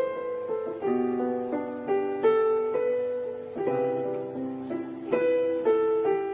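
Kurzweil KP110 digital keyboard playing its grand piano voice: a slow piece with notes and chords struck about once a second, each ringing and fading.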